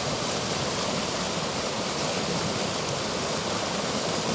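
River rapids: whitewater rushing steadily down a rock chute, with no breaks or distinct splashes standing out.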